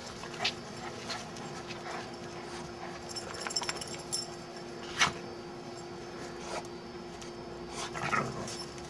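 Two dogs, a big shaggy black dog and a small black dog, playing together: scattered scuffling and short dog noises, with a sharp knock about five seconds in.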